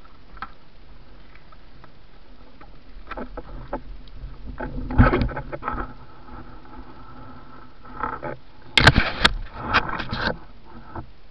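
Knocks, bumps and clatter of a person climbing aboard a small wooden boat, with body and gear striking the hull and bamboo deck. Scattered knocks come in the first half, with the loudest burst of clatter about nine seconds in, over a faint steady hum.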